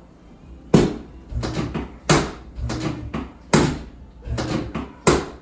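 A series of about seven dull thumps and clunks, roughly one every three-quarters of a second, from a chiropractic adjustment on a treatment table.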